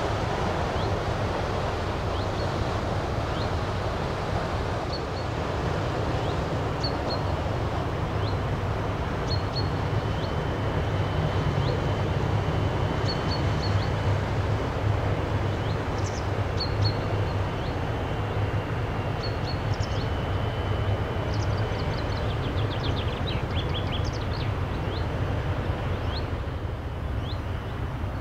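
Low steady drone of a passing cruise ship's engines, stronger in the middle, over a wash of wind noise. Small birds chirp in short calls throughout.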